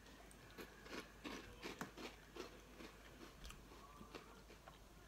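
A person biting into and chewing crunchy puffed corn cheese snacks, like Pirate's Booty: faint, irregular crunches.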